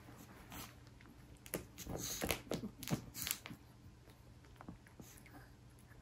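Yorkshire terrier foraging in a plush carrot-patch snuffle mat, sniffing and chewing the treats it digs out: a run of short, irregular snuffles and chews between about one and a half and three and a half seconds in.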